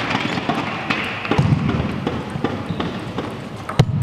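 Table tennis ball clicking off rackets and the table in a rally, a sharp tap every half second or so over the murmur of a large hall, with one louder crack near the end.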